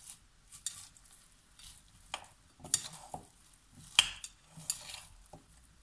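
A spoon and hand tossing chopped lettuce and parsley through bulgur salad in a glass bowl. Soft rustling is broken by a few sharp clinks of the spoon against the glass, the loudest about four seconds in.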